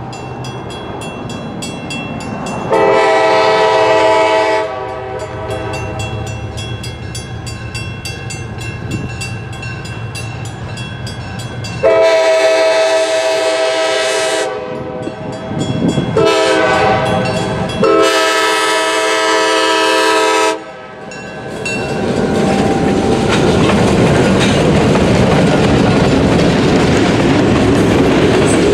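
Gettysburg & Northern GP10 diesel locomotive sounding its horn in a long-long-short-long pattern, the standard grade-crossing signal, over a low diesel engine rumble. From about three-quarters in, the train passes close by with a steady clatter of wheels on rail joints.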